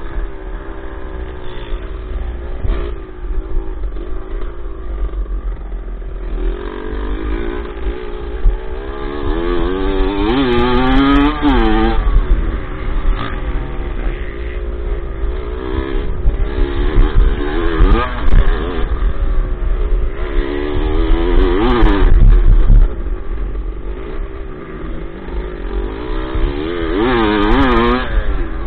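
Dirt bike engine revving up and down through the gears, rising to hard revs several times, over a constant low rumble on the microphone.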